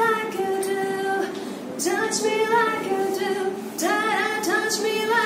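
A woman singing solo, holding long notes in phrases with short breaks between them.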